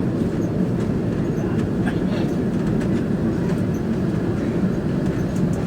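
Steady low rumble inside the cabin of an Airbus A330-200 taxiing after landing, with faint scattered rattles and clicks from the cabin fittings.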